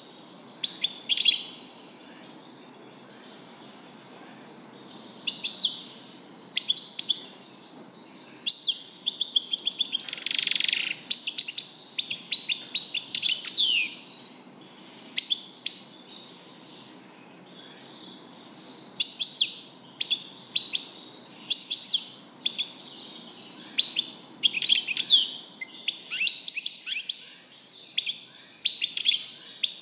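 European goldfinch singing: rapid, high-pitched twittering song with trills, coming in long bouts broken by pauses of a few seconds.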